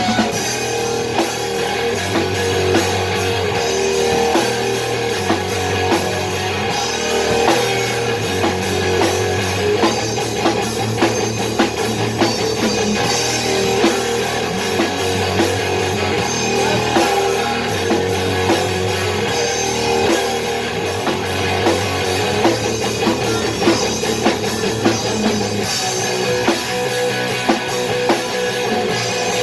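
Rock music with a drum kit and guitar playing a steady beat.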